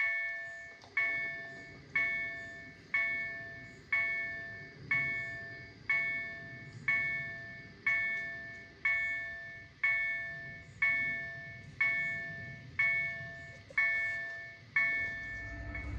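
Level crossing warning bell ringing with an even stroke about once a second, each strike dying away before the next. Near the end the low rumble of an approaching train begins under it.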